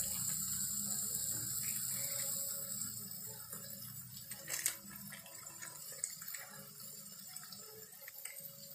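Spiced onion-tomato masala sizzling in hot oil in a frying pan while a wooden spatula stirs it, with occasional scrapes and taps of the spatula on the pan. The sizzle is strongest for the first three seconds, then dies down, and the sharpest tap comes about four and a half seconds in.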